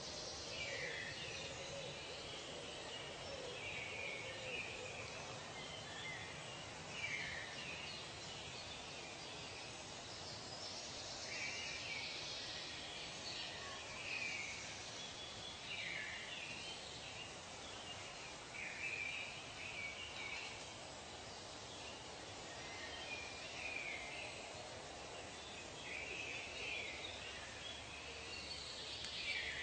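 Birds calling over a steady background hiss: short chirps and falling whistles, one every second or two.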